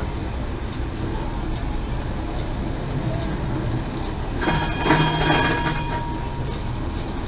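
Tram's warning bell ringing for about a second and a half, a little past the middle, over the steady running noise of the tram on its rails.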